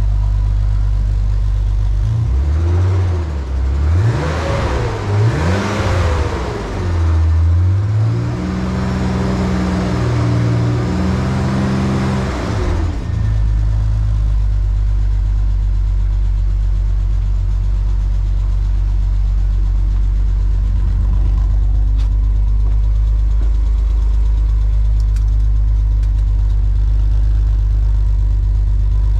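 BMW E46's M54B30 straight-six, exhausting through a homemade split dual exhaust with no catalytic converters, idling and then revved. About two seconds in come several quick blips that rise and fall, then the revs are held steady and higher for a few seconds. About thirteen seconds in the engine drops back to a steady idle.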